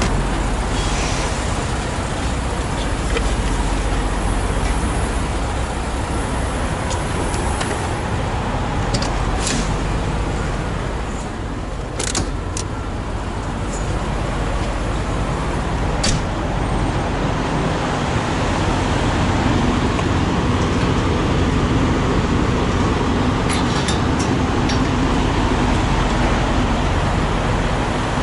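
Semi truck's diesel engine running, a steady low drone with a few short sharp clicks over it.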